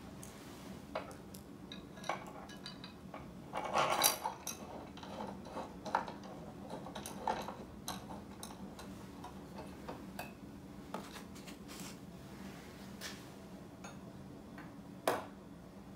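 Small metallic clicks and clinks as an LED pod light and its metal mounting bracket are handled and fitted together, with a louder cluster of clinks about four seconds in and a single sharp click near the end.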